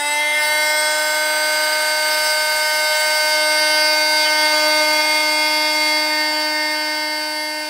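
Sonicrafter oscillating multi-tool running at its high speed setting (6) with its blade cutting a notch into a plastic shelf bracket: a steady, loud, high buzzing whine that starts to die away near the end.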